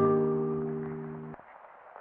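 Background music: a held note or chord that starts at once and fades out over about a second and a half.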